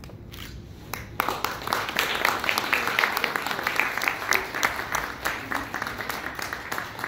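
Small audience applauding, starting about a second in after a short hush: many separate hand claps, loud at first and thinning slightly toward the end.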